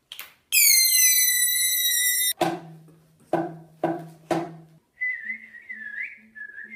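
A shrill held tone with overtones falling in pitch for nearly two seconds, then four sharp struck notes over a low hum, then a person whistling a wavering note near the end.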